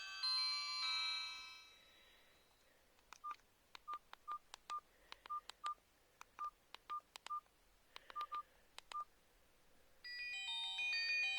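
Hykker Classic mobile phone: a polyphonic ringtone melody fades out, then about a dozen short keypad beeps, each with a button click, sound at uneven intervals as keys are pressed. About ten seconds in, the next preinstalled polyphonic ringtone melody starts.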